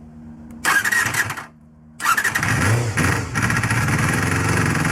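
Honda Jade MC23's 250 cc inline-four engine being started: a first short burst of cranking stops, then about two seconds in it cranks again, catches and keeps running.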